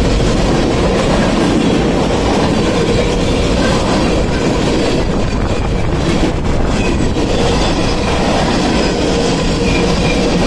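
Freight train of covered hopper cars rolling past close by: a steady, loud rumble of steel wheels on the rails.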